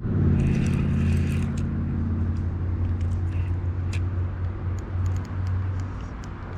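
A motor running steadily with a low hum, easing off slightly toward the end, with a few light clicks.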